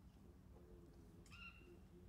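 Near silence with a faint low background hum, broken by one short bird chirp about two-thirds of the way through.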